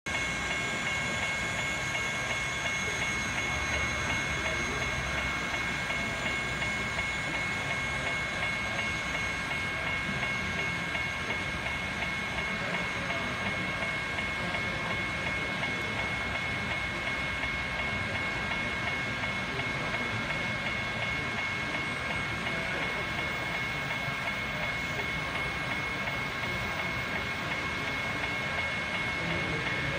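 N scale model train, Susquehanna locomotives pulling a long string of double-stack well cars, running steadily along the track: an even mechanical rush with a few high, steady whining tones that don't change.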